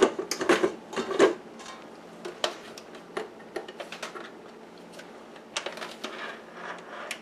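Stainless steel mixing bowl and stand mixer parts being handled and fitted: a run of sharp metal knocks in the first second or so, then scattered light clicks and taps.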